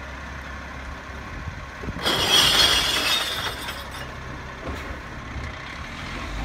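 Rear-loader garbage truck's diesel engine idling steadily while a recycling wheelie bin is tipped into its hopper; about two seconds in, the contents pour in with a loud crash and clatter of breaking glass bottles that lasts about a second and a half.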